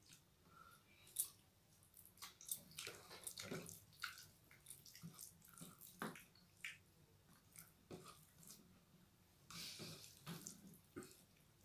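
Scattered soft, wet clicks and squelches of fingers mixing mushy rice in its starch water on steel plates, mixed with chewing. A brief rustle comes near the end.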